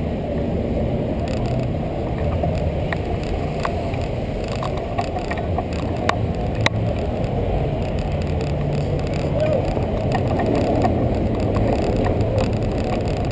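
Steady wind and road rumble on the microphone of a bicycle-mounted camera riding through city traffic. A few sharp clicks and rattles from the bike come in the middle.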